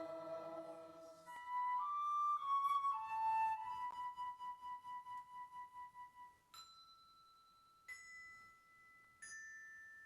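Slow, quiet instrumental music: a chord fades out, then a melody of single held notes, one of them pulsing, then three bell-like struck notes about a second and a half apart that ring on.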